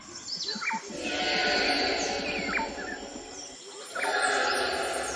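Prehistoric-jungle sound-effects ambience: short bird chirps over a dense, rapidly pulsing animal sound that swells about a second in, dips briefly, and comes back at about four seconds.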